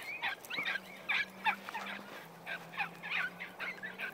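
Hunting dog yelping in a rapid string of short, high-pitched cries, about three a second, as it chases a rabbit into brambles.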